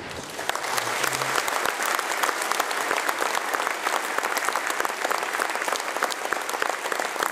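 Large seated audience applauding, the clapping rising about half a second in and then holding steady as a dense patter of many hands.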